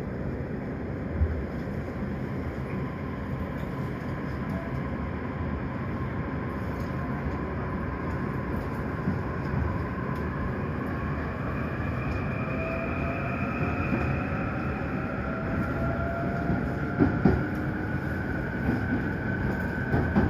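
Joban Line E531-series electric commuter train pulling away: its motor whine rises slowly in pitch as the train gathers speed, over steady running noise. A few short louder clunks come in the last few seconds.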